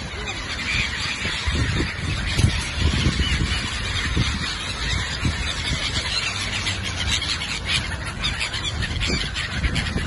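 A flock of gulls calling over one another in a feeding frenzy, with many wingbeats close by as the birds take off and wheel around.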